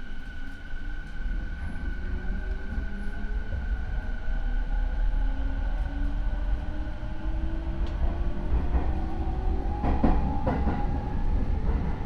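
Rinkai Line 70-000 series electric train with Mitsubishi IGBT inverter and MT73 traction motors, heard from inside the car while accelerating: the motor and inverter whine climbs steadily in pitch over the running rumble, with wheels clicking over rail joints about ten seconds in. The motor noise of this car is unusually loud, a known noisy unit.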